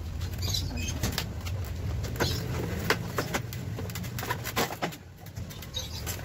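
Clicks and knocks of a Honda Click scooter's plastic front body panels being pulled loose by hand, over a low steady hum.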